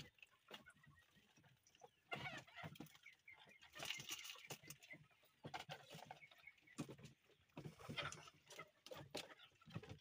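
Faint, scattered clucking of chickens in short separate calls.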